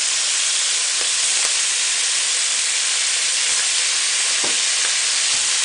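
Deboned duck feet stir-frying in a hot wok, sizzling hard in a steady hiss, with a couple of faint taps.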